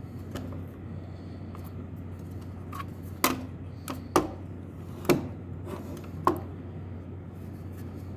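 Sharp, irregular clicks and knocks as the inner assembly of a computer module is pried and wiggled loose from its frame. There are about five distinct knocks, with a steady low hum underneath.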